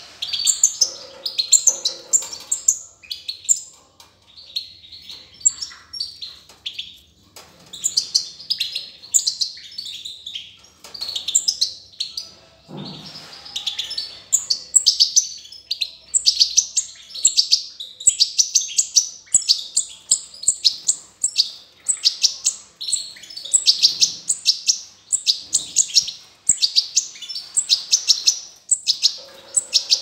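European goldfinches, an adult with its fledglings newly out of the nest, calling in quick runs of high, twittering chirps with short pauses between bursts.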